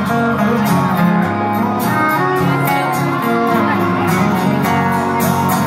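Live country band music, with a fiddle and a strummed acoustic guitar playing through the PA.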